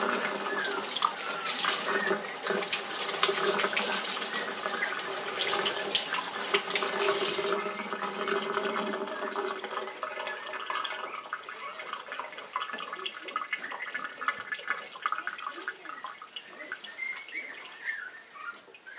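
Kitchen faucet running water over a puppy and into a stainless steel sink, shut off suddenly about seven and a half seconds in. Short, high squeaks and whimpers from the 26-day-old puppy come through the water and go on after it stops.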